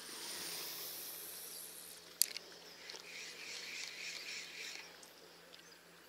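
A spinning-rod cast: braided line hissing off the reel spool for about two seconds, then a single sharp click. After it the spinning reel winds in with a soft whirring.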